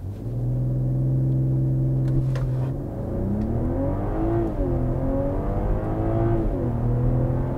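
BMW M340i's 3.0-litre turbocharged straight-six during a full-throttle 0–100 km/h launch. The revs are held steady for a couple of seconds, then climb under acceleration, dropping sharply at two quick upshifts about four and a half and six and a half seconds in before rising again.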